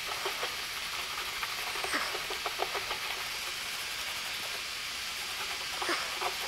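Paper towel rubbing and scuffing over a plastic washer reservoir as it is wiped clean, in short strokes over a steady hiss.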